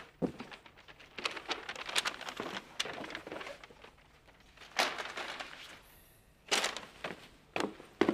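Objects being handled: soft rustling with a string of short, sharp knocks and clacks, the strongest two a little past the middle.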